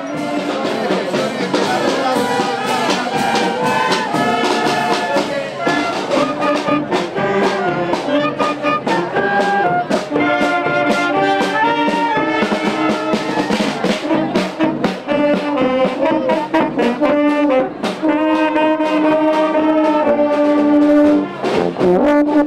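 Marching band playing a tune: clarinets and brass carry the melody over a steady beat of bass drum and snare drum.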